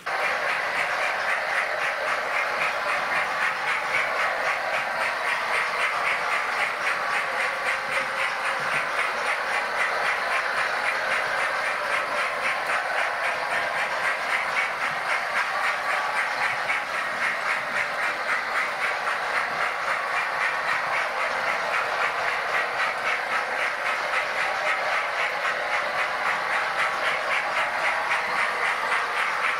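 Model railway trains running round the layout: a steady whirring of small motors and wheels with a fast, even clicking over the track.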